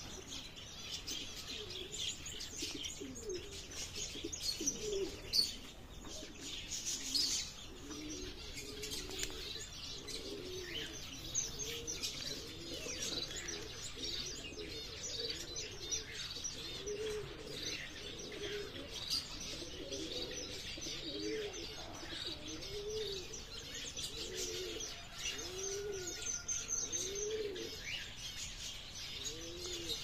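Ornamental pigeons cooing repeatedly, the coos coming about once a second through the second half, over a constant chatter of small birds chirping and twittering.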